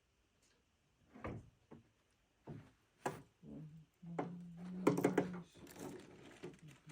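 Handling noise from taillight bulbs and their sockets: several separate clicks and knocks, then a louder rustling crackle about five seconds in, over a low steady hum lasting about a second and a half.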